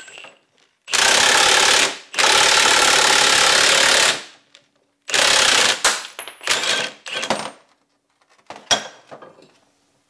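Cordless impact wrench hammering in a series of bursts as it drives the screw of a ball joint press, pushing a U-joint out through the yoke of a front axle shaft: two long bursts, then several shorter ones, and a single sharp metallic knock near the end.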